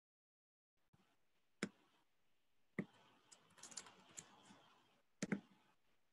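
Faint computer keyboard typing and clicking: a few sharp single clicks, with a short quick run of keystrokes in the middle and a double click near the end.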